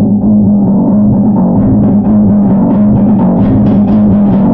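Loud drum-driven soundtrack music: heavy pounding drums over a deep, steady bass note, with the upper percussion growing brighter toward the end.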